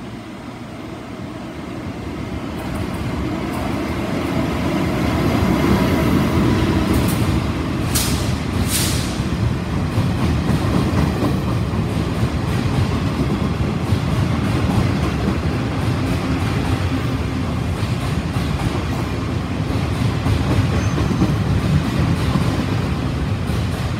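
A locomotive-hauled Taiwan Railways Chu-kuang Express train running through an underground station without stopping. The rumble builds over the first five seconds as it approaches, then holds as steady wheel rumble with rapid rail clicks while the coaches pass, with two short hisses about eight seconds in.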